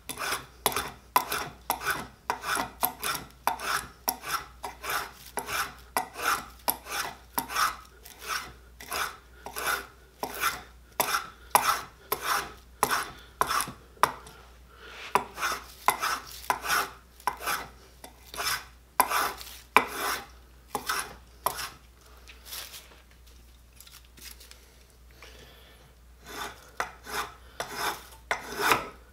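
Spokeshave cutting shavings from a hickory handle: quick repeated scraping strokes, about two a second. The strokes stop for a few seconds near the end, then start again.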